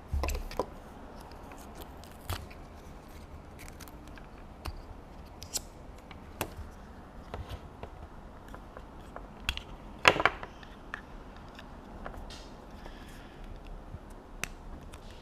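Small plastic parts and packaging being handled by hand: scattered light clicks and taps, with a sharper cluster of clicks about ten seconds in.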